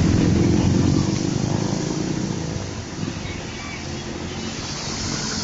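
Bus engine and road noise as a bus drives past. The low rumble fades from about a second in, then swells slightly again near the end.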